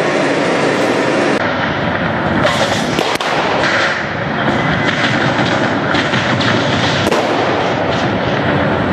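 Pyrotechnic battle effects going off among radio-controlled model tanks: sharp bangs and crackles, a few standing out around three seconds in and again near the seven-second mark, over a steady noisy din.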